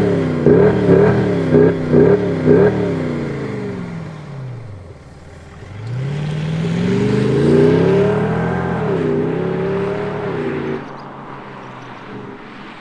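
Mercedes-Benz CLS 400d diesel with an Active Sound Unit sound generator playing its 'File 10' AMG-style V8 sound, A-mode off. About six quick throttle blips in place, then the engine note falls away. From about halfway it rises in one long pull as the car accelerates off, dips briefly and fades out.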